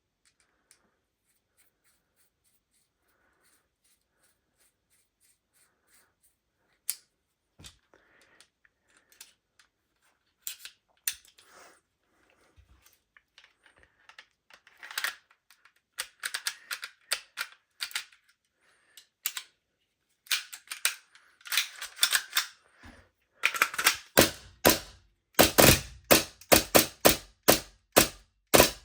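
Armourer Works G18C gas blowback airsoft pistol being handled and test-cycled: scattered small clicks of the mechanism, then from about two-thirds of the way in a run of loud, sharp metallic clacks about two a second. The test is for a fault where the pistol fires full auto on semi.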